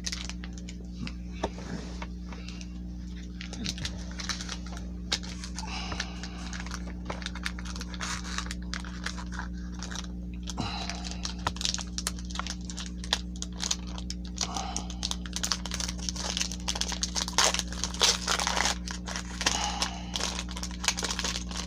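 Foil Pokémon booster pack wrapper crinkling and tearing as it is opened by hand, a busy run of small crackles and rustles, over a steady low hum.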